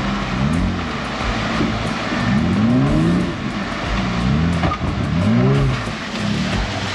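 Off-road 4x4's engine revving up and down in short bursts, about four times, over a steady rumble as it crawls over rocks.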